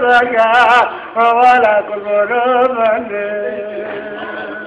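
An elderly man singing a Turkish folk song (türkü) without accompaniment, in ornamented runs with a wavering pitch. About three seconds in he settles on a long held note that slowly fades.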